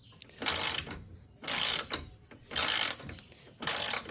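Ratchet wrench clicking in four short bursts about a second apart, the return strokes of the ratchet as a stuck, rusted battery hold-down nut is worked loose.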